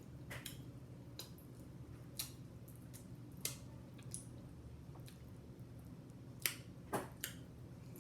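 Scattered sharp, wet mouth clicks and smacks of someone eating close to the microphone, about seven of them, the loudest two coming about six and a half and seven seconds in.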